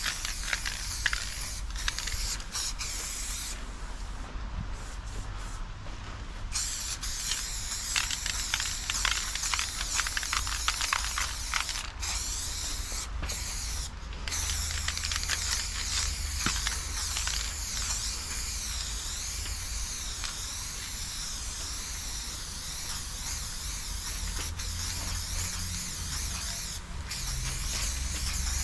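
Aerosol spray paint can spraying black paint onto a freight wagon's steel side in long hisses, stopping briefly a few times between strokes, with crackly clicking during some strokes.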